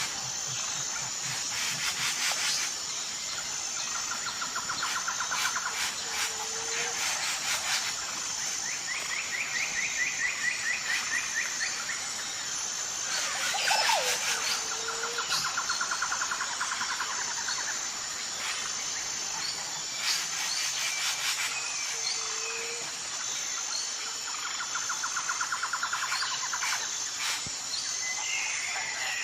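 Birds calling over a steady high insect drone. Rapid trills of about two seconds recur several times, and a short low note comes every several seconds.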